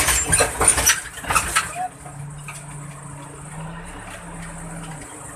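Clattering knocks for about two seconds, then an engine idling with a steady low hum that cuts off near the end.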